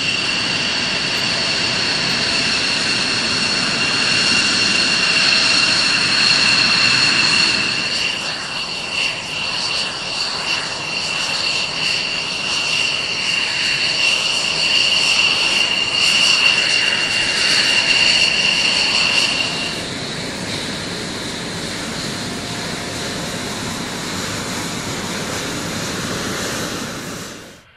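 F-16 fighter's jet engine running on the ground while taxiing: a loud jet roar with a steady high-pitched two-tone whine. The whine stops about twenty seconds in, leaving a quieter roar that cuts off abruptly at the end.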